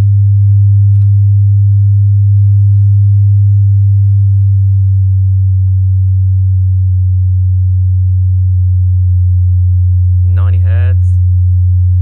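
AVE Revo 15 powered speaker's 15-inch woofer playing a loud, steady sine test tone at about 100 Hz, one step of a frequency sweep.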